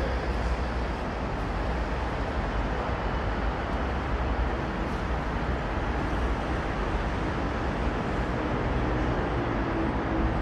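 Steady road traffic noise: a continuous rumble and hiss of passing cars, with no single vehicle standing out.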